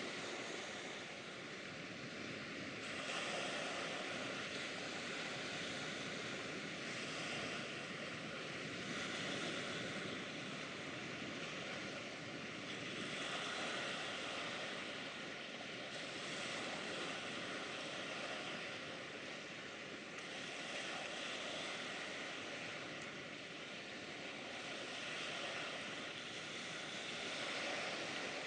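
Steady wash of river waves and wind, swelling and easing every few seconds.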